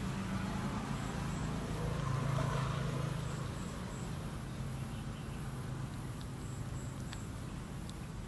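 Outdoor ambience: a steady low hum with faint, repeated high insect chirps, and a few soft clicks near the end.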